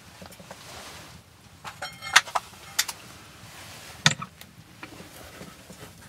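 A wooden chest with metal clasps and hinges being opened: a few sharp clicks and a short rattle about two seconds in, then a single loud knock a little after four seconds as the lid is lifted.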